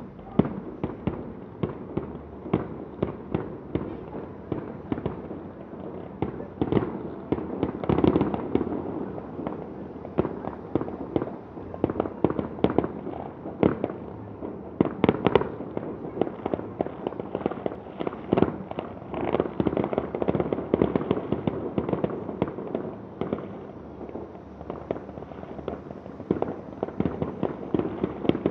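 Aerial fireworks display: a dense, continuous barrage of bangs and crackling bursts, several a second, heaviest about eight and fifteen seconds in.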